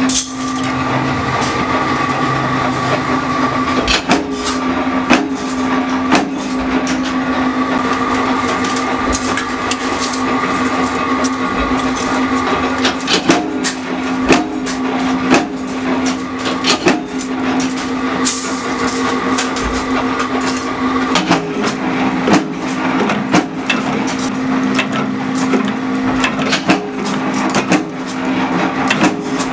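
Workshop machinery running with a steady motor hum, broken by frequent irregular sharp metallic knocks and clatter from steel spoon blanks being handled and pressed in a die.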